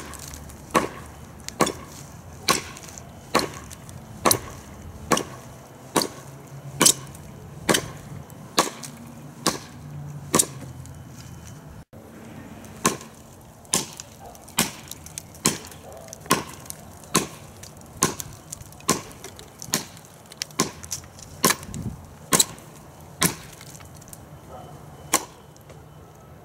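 A TOPS Bushcrafter Kukuri 7 kukri with a 1095 carbon-steel blade chopping into a wooden stump against the grain. The blade strikes again and again at a steady pace of just over one chop a second.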